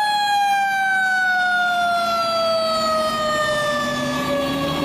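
Fire truck siren sounding as a tiller ladder truck pulls out: one long tone that falls slowly and steadily in pitch. A fainter, lower tone rises near the end.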